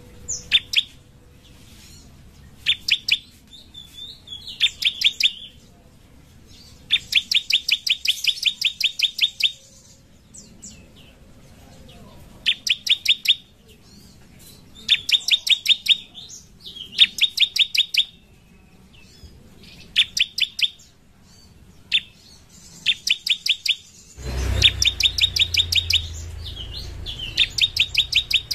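Bar-winged prinia (ciblek) singing: bouts of rapid, sharp, evenly repeated chirps, from a few notes to more than a dozen per bout, with short pauses between. A low rumble comes in near the end.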